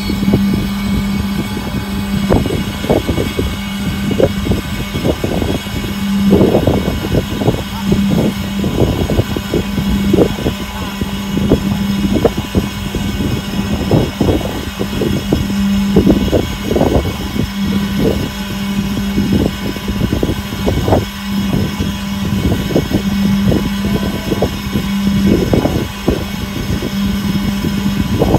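Wind gusting against the microphone in rapid, irregular buffets, over a steady low drone from the ferry's engines.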